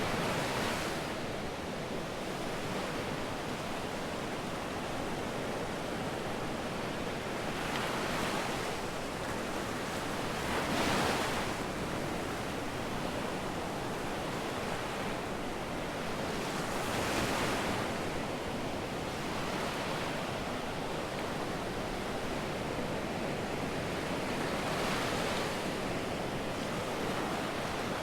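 Sea waves breaking and washing up the beach: a steady rush of surf that swells every few seconds as each wave comes in.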